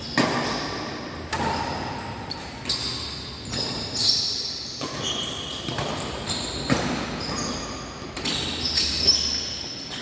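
Badminton rally in an indoor sports hall: sharp racket strikes on the shuttlecock, roughly one every second, with short high squeaks of shoes on the court floor between them.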